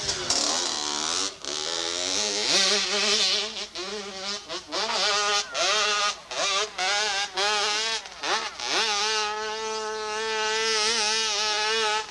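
Small dirt bike's engine revving hard, its pitch rising and dropping back several times, then held steady at high revs for the last few seconds.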